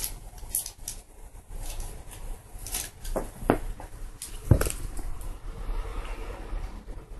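Scattered light taps and patter of a cat's paws and a cat-teaser toy on a wooden floor as the cat chases and pounces, with one louder thump about four and a half seconds in.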